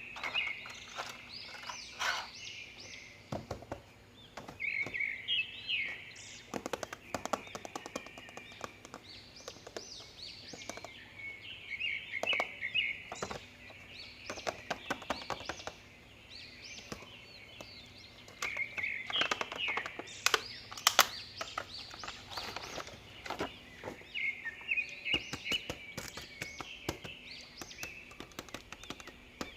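Small birds chirping in short, repeated bursts, mixed with scattered sharp clicks and taps.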